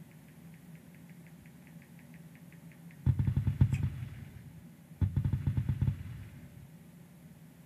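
A phone vibrating against a hard surface: two rattling buzzes of about a second each, the first about three seconds in and the second a little over a second later.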